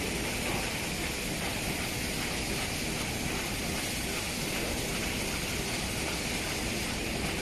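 Steady mechanical din of paper die-cutting machines running on a factory floor, an even hiss-like noise with no distinct strokes standing out.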